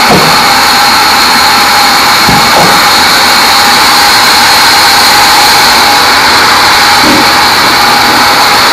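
Band sawmill sawing a teak log: a loud, steady high-pitched hiss and whine from the blade running through the wood.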